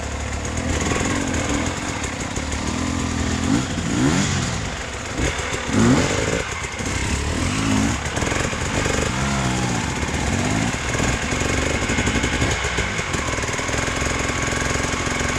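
Off-road motorcycle engine revving again and again, its pitch rising and falling every second or two under load on a hard climb.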